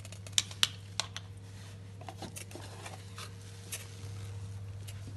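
A few sharp clicks and light taps as a small part, the replacement refrigerator defrost timer, is handled, the two loudest about half a second apart in the first second. A steady low electrical hum runs underneath.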